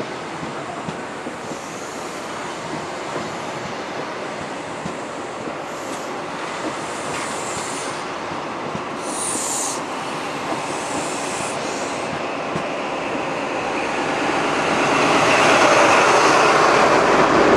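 Departing High Speed Train rolling past at low speed, a steady rumble of wheels on rail, with short high-pitched squeals around the middle. Near the end the rear Class 43 diesel power car draws level and the sound grows to its loudest.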